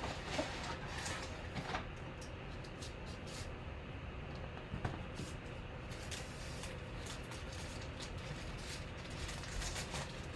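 Plastic-wrapped trading card packs and their cardboard box rustling and crinkling as the packs are slid out and handled, in scattered small ticks over a steady low hum.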